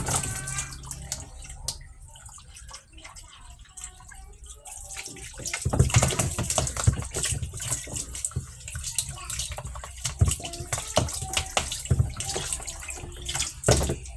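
Water splashing and sloshing unevenly in a washing machine tub as it is rinsed out, with louder splashes about six seconds in and again near the end.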